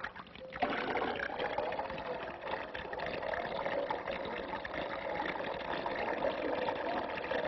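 Water sloshing and splashing like waves against a ship, a steady crackling wash that starts about half a second in.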